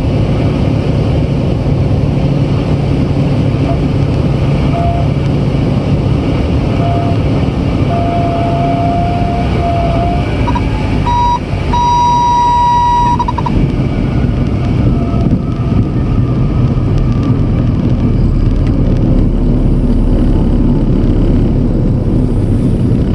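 Cessna TR182's engine and three-blade propeller running at low power with wind rushing past, through the landing flare and rollout. Midway the stall warning horn sounds on and off for several seconds, higher in pitch and stronger in its last two seconds: the sign that the aircraft is near the stall in the flare, as wanted for landing.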